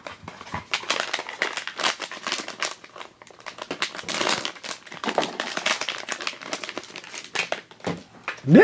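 Foil blind-box bag crinkling in the hands as it is opened, a dense run of irregular crackles.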